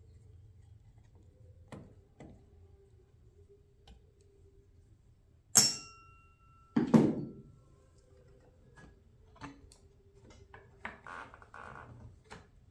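Workshop handling noises as tools and parts are moved: a sharp clink that rings on briefly about five and a half seconds in, then a louder dull thud about a second later, with scattered small clicks and a short rattle near the end.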